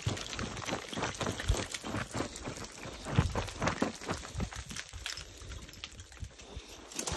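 Hiking boots scrambling up a rocky ledge, crunching and scuffing on loose rock and gravel in quick, irregular steps, kicking loose dirt. The steps thin out near the end.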